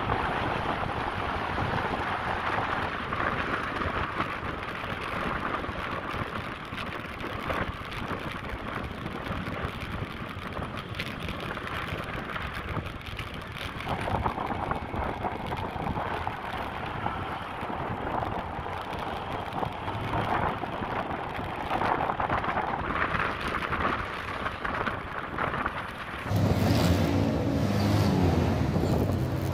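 Wind buffeting the microphone of a camera on a moving motorcycle, a steady rushing noise with no clear engine note. Music comes in near the end.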